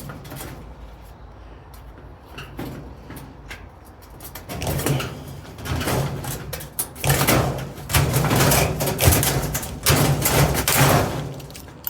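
Battery-powered telescopic rivet gun running in a series of short bursts as it sets aluminium pop rivets, with the sheet-steel raised-bed panels rattling and clanking. The bursts come thick and loud in the second half.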